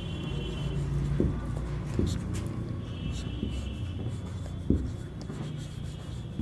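Marker pen writing on a whiteboard, with a few short knocks as it strikes the board, the loudest near the end.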